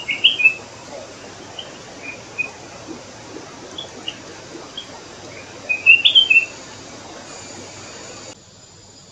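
Flame-throated bulbul calling: short bursts of quick chirping notes, one burst at the start and another about six seconds in, with single notes scattered between.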